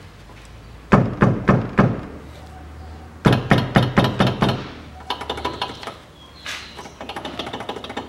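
Gloved hand knocking on the front wheel of a 2005 Toyota Passo while the brake caliper is held by hand, a test for the rattle of caliper guide pins loose in the caliper bracket. Two rounds of hard knocks, about four and then about six, followed by lighter, quicker clicking and clatter.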